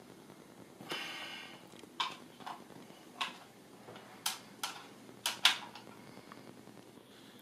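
Small plastic toys clacking as a toddler handles them: a scattered series of sharp clicks and knocks, the loudest about five and a half seconds in, after a short rasping sound about a second in.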